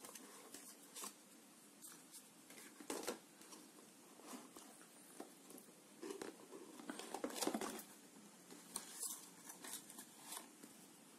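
Faint rustles and scrapes of a cardboard gift box and its inner tray being handled, a little louder about three seconds in and again between six and eight seconds in.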